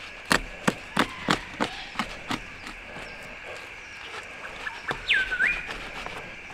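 Fillet knife crunching through a silver perch's rib bones: a run of sharp cracks about three a second, fading after a couple of seconds. About five seconds in, a bird gives one whistled call that drops steeply, then rises.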